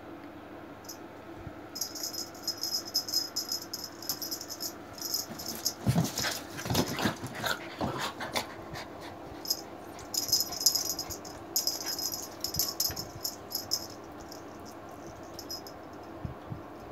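American cocker spaniel puppies yapping and whining excitedly in a burst of a couple of seconds about six seconds in. Light rattling and clicking comes and goes around it.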